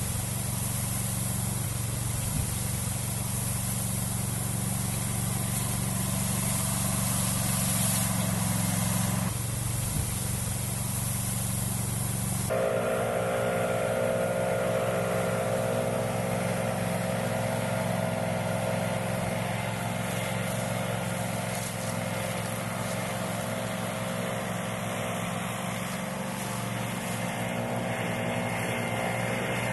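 Engine of a Brielmaier walk-behind motor mower running steadily while it pushes hay with a hay-pusher blade. Its note changes abruptly about nine and about twelve seconds in.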